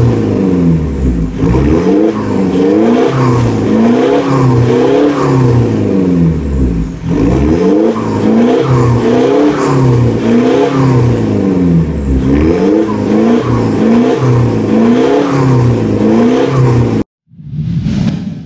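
2013 Mitsubishi Montero's engine revved in quick throttle blips, about one a second, through an aftermarket turboback exhaust with dual tips. It cuts off suddenly near the end, where a swelling whoosh sound effect begins.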